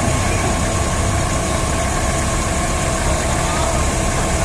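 Diesel forklift engines running steadily: a continuous low rumble with a faint steady whine above it.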